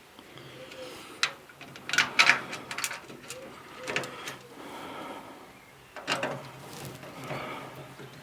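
Metal clinks and knocks of a spanner working a bolt as a tractor dashboard is bolted in place, in short irregular clusters, loudest about two seconds in.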